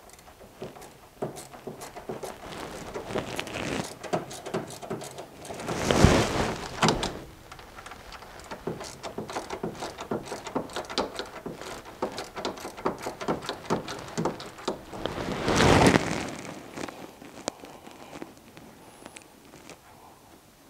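Ratchet wrench clicking in quick runs as a 10 mm nut is backed off the bolt holding the shift cable's rod end to the shift lever, with two louder rustling handling noises about six and sixteen seconds in.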